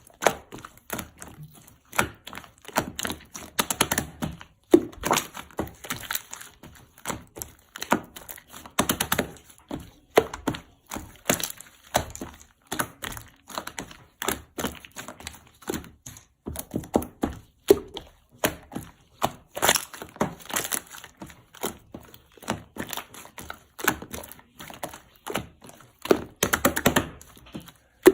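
A long run of irregular sharp clicks, taps and knocks, several a second, coming in bunches.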